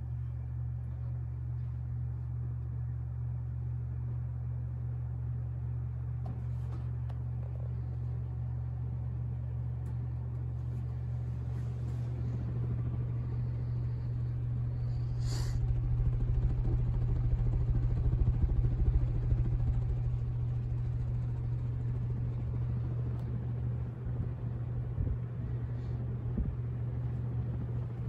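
1992 Casablanca Stealth ceiling fan running on its top speed, six: a steady low motor hum with the whoosh of the blades. About halfway through the sound grows louder and the fan's draft starts buffeting the microphone, with one sharp click in the middle.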